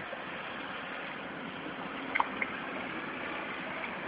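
Hooked catfish thrashing at the water's surface, splashing and gurgling, with two sharper splashes close together about two seconds in, over a steady hiss.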